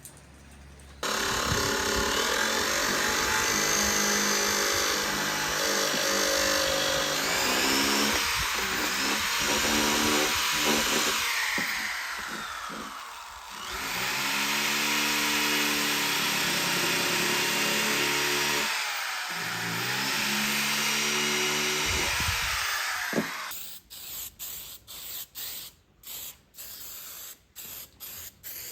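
Handheld electric power tool, such as a drill, running hard for about 22 seconds, its pitch rising and falling as the load changes and briefly easing twice. Near the end it stops and a run of short hissing bursts follows, like an aerosol spray can being worked on the head cover.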